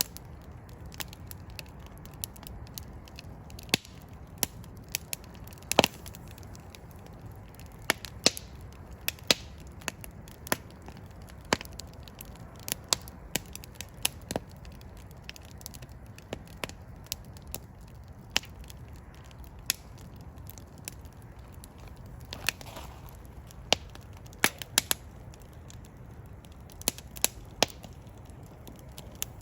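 Fireplace fire burning, with irregular crackles and sharp pops, some much louder than others, over a steady low rumble.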